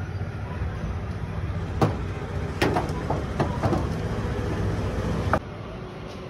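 Sheet-metal clanks and knocks as a blue steel windshield is handled and set around a row of gas burner stands, over a steady low traffic rumble. The rumble drops away suddenly after a last knock near the end.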